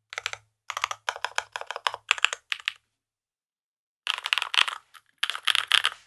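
Typing on a RAMA M65-B mechanical keyboard with stock Emogogo linear switches, a PVD brass plate, silicone dampening and GMK Serika 2 keycaps: quick runs of keystrokes, with a pause of about a second in the middle.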